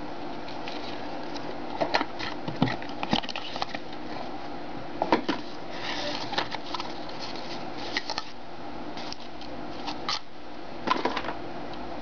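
Hands handling a Parker Jotter pen's box, card tray and paper leaflet: scattered light clicks, taps and a brief paper rustle over a steady low hum.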